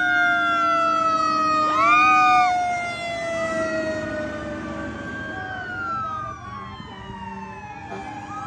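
Fire truck sirens wailing, more than one sounding at once, their pitch sliding slowly down with a quick rise about two seconds in. They fade as the trucks drive past.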